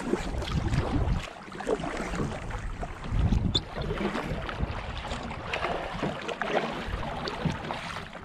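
Kayak paddle strokes splashing and dripping in the water, with wind buffeting the microphone in low gusts, strongest near the start and about three seconds in.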